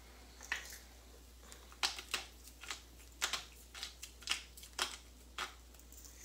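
Salt grinder being twisted, giving about ten short, crisp crunching clicks at an uneven pace as salt is ground out.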